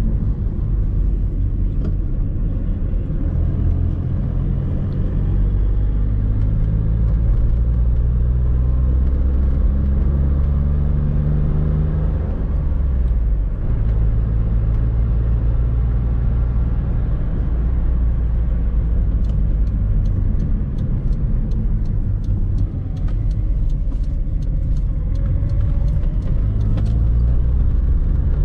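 Engine and road noise inside the cabin of a 1998 Suzuki Swift III on the move. The engine note climbs as the car accelerates, drops briefly about halfway through, then holds steady and climbs again later on. Faint regular ticking runs through the second half.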